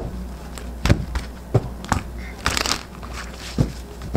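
Tarot cards being handled: a string of sharp card taps and flicks, with a short rustling riffle about halfway through.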